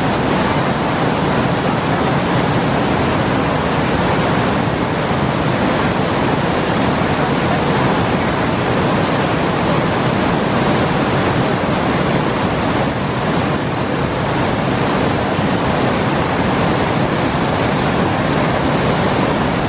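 White water of large river cascades and rapids pouring over rock ledges: a loud, steady rush of falling water that holds at the same level throughout.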